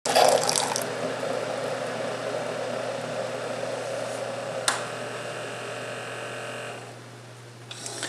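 Keurig B40 coffee maker dispensing hot water into a glass measuring cup: a steady rushing pour over a steady low hum, with one sharp click near the middle. The flow dies away about seven seconds in as the brew cycle ends.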